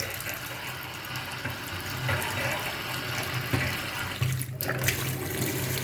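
Water running from a tap in a steady rush, with a low hum underneath. There is air in the lines of the solar water-heating system.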